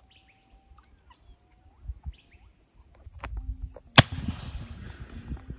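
Small birds chirping with short rising calls, then a single sharp air rifle shot about four seconds in, the loudest thing in the clip, with a faint click just before it.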